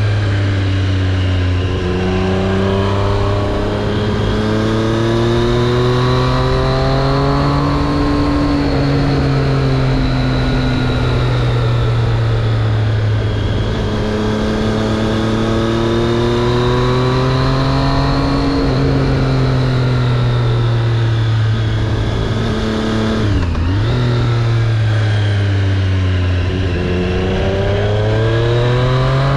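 Triumph Street Triple RS three-cylinder engine under way, its revs falling and rising slowly several times as the bike slows and accelerates, with a quick dip in pitch and back about two-thirds of the way through. A steady rush of noise runs under the engine.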